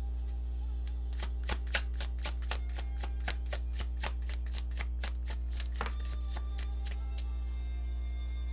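Deck of tarot cards being shuffled by hand: a quick run of crisp card slaps and clicks, about four a second, that starts about a second in and stops about seven seconds in.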